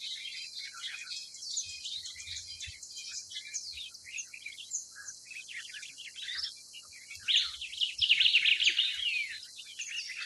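A chorus of small birds chirping and twittering, with many quick high calls overlapping, getting louder and busier for a couple of seconds near the end.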